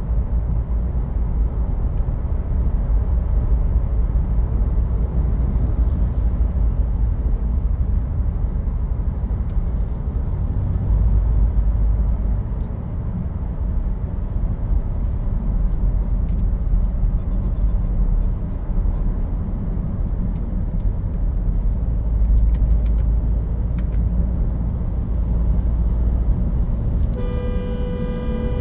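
Steady low rumble of a 2015 Land Rover Discovery Sport being driven on a road test after a new engine was fitted, engine and road noise together. Near the end a car horn sounds briefly.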